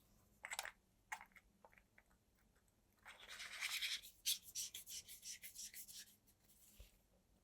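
Sofirn SR20 MINI flashlight's threaded parts being handled and screwed back together: a few light clicks, then a run of short, faint scraping rubs at about four a second.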